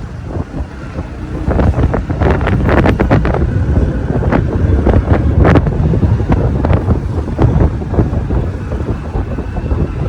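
Wind buffeting the microphone from a moving vehicle, a heavy low rumble, with a run of sharp knocks and rattles from about a second and a half in to the middle.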